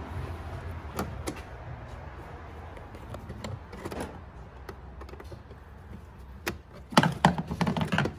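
Scattered clicks and knocks of a flathead screwdriver prying at the plastic clips and housing of a BMW N55 engine's air intake, with a quick run of louder clicks near the end.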